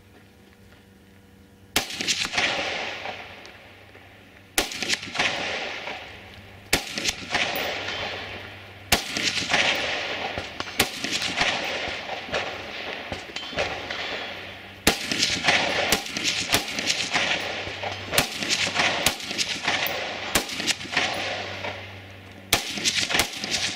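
Rifle shots fired one at a time at an uneven pace, roughly one every one to two seconds, each followed by a long echo that fades out. The shots begin about two seconds in and run on to the end.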